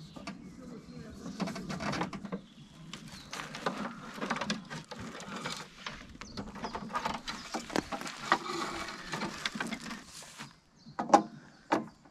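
Irregular clicks, knocks and rustling of a folding metal camp kitchen unit being handled and assembled, with two sharper knocks near the end.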